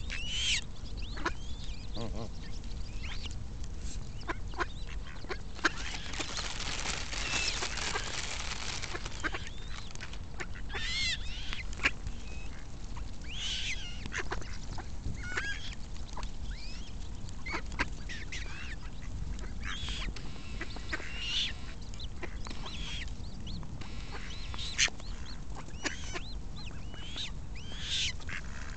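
Eurasian coots giving short, sharp high calls, repeated every second or two, mixed with mallard quacks.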